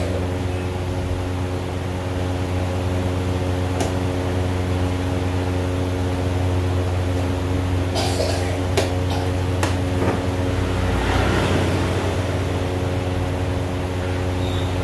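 A steady low mechanical hum with a few steady tones, like a fan or cooling machine running. Several sharp clicks sound over it, one about four seconds in and a cluster about eight to ten seconds in, from chess pieces being set down and the chess clock being pressed.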